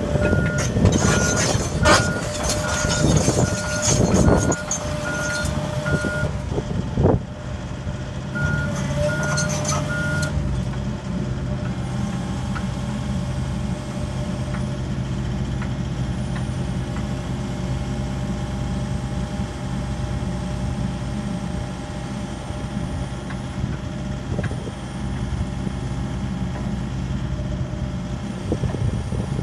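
John Deere excavator's diesel engine running under hydraulic load while it picks up a tilt bucket. A beeping alarm sounds through the first ten seconds or so, with a pause around seven seconds, and there are sharp knocks around two and seven seconds. After that the engine runs steadily.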